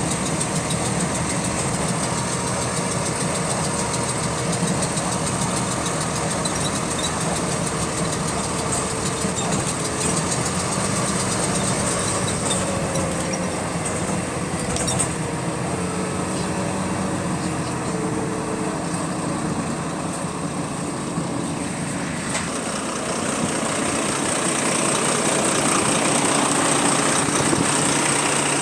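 Bus diesel engine running, with a repetitive clicking in time with engine speed, of unknown cause. The engine grows louder in the last few seconds.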